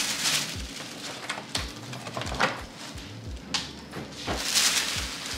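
Tissue paper rustling and crinkling in several short bursts as sheets are handled and pulled out of a gift bag, with faint low thumps at a fairly even pace underneath.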